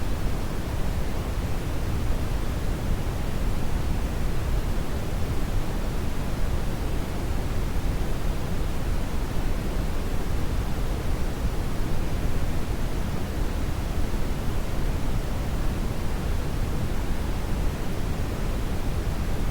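Steady synthetic brown noise: an even, unchanging rush weighted heavily toward the low end, with no tones or events.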